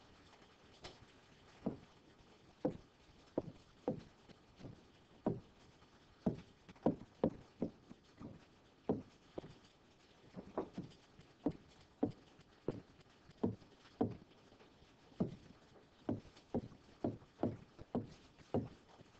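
A series of light, irregular taps or knocks, about one to two a second, over a quiet background.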